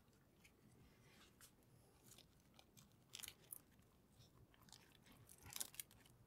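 Quiet crisp crackling and rustling of a thin pancake with lettuce and mushroom filling being folded and rolled up by hand on a wooden board. The louder crunches come about three seconds in and again about five and a half seconds in.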